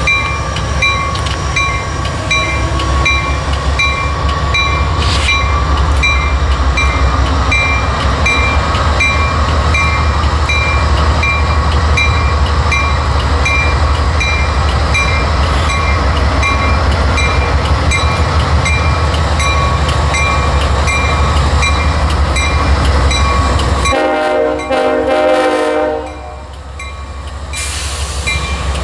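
CSX GE CM44AC diesel locomotives moving slowly past with a deep engine rumble while the locomotive bell rings steadily, about three strokes every two seconds. The rumble drops away sharply near the end, while the bell keeps ringing.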